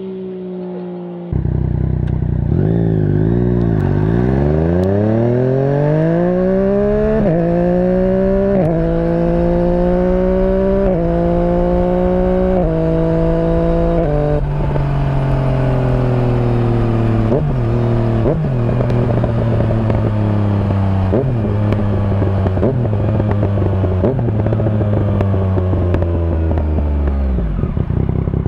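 Yamaha MT-09 inline-three engine, fitted with an aftermarket exhaust, accelerating hard through several upshifts: the revs climb and drop sharply at each shift. Then the throttle closes and the revs fall slowly through a series of downshifts, settling low near the end.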